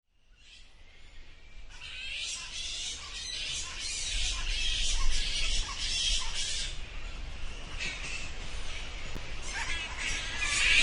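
Bats squeaking and chittering: a dense run of rapid high-pitched calls that fades in over the first two seconds and then continues without a break.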